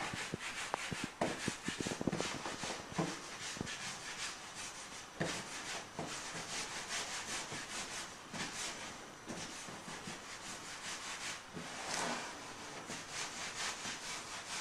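Hands rolling pieces of homemade fusilli dough into thin sticks on a wooden pastry board: repeated soft rubbing strokes of palms and dough against the wood.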